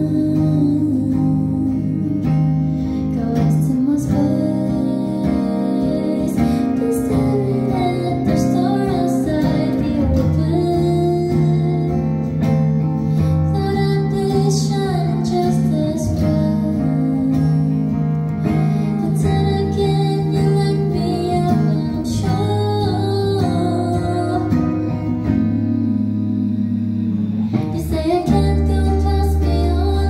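Live performance of an indie song: a woman singing while playing an electric guitar, with sustained low notes underneath.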